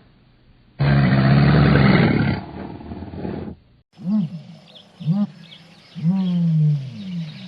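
An animal's loud, rough call lasting about a second and a half, then after a sudden cut a second animal giving short calls that rise and fall in pitch, with one longer falling call near the end.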